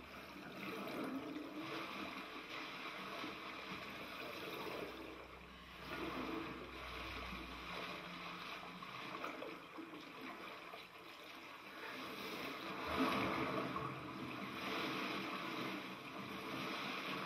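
Water splashing and churning as a swimmer in a wetsuit strokes through the surface, heard through a television speaker.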